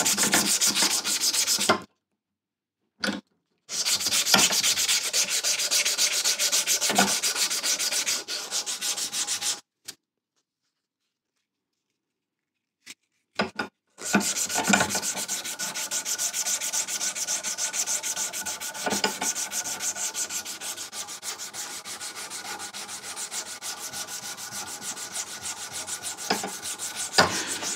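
Strip of 240-grit aluminium oxide abrasive paper pulled back and forth around the steel boss and handle of a Record No.52 vice screw: a fast, rhythmic rasping rub, hand polishing bare metal. It stops twice, briefly about two seconds in and for a few seconds around ten seconds in.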